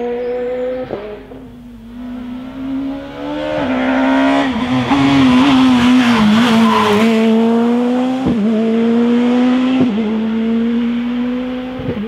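Rally car engine at high revs as the car drives the stage and passes close, loudest about halfway through. The pitch climbs under acceleration and breaks sharply at each gearshift, with a short pop at several of the shifts.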